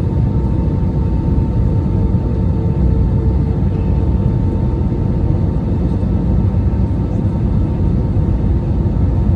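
Airbus A319 cabin noise in flight: the steady low rumble of the engines and airflow, with a faint steady hum that drops away about four seconds in.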